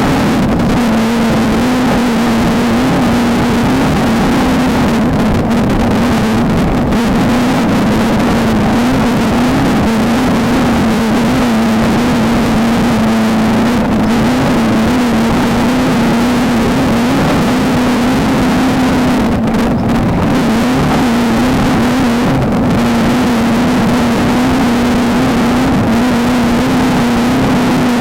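Off-road desert race car's engine running at steady high revs, under a constant loud rush of wind and terrain noise.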